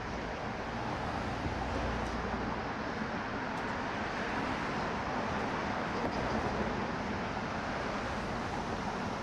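Steady city road traffic noise: the mixed hum of vehicles on a busy street, with a deeper low rumble from a passing vehicle in the first couple of seconds.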